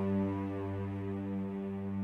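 Background music: a low, sustained chord held steadily, with a cello-like string drone.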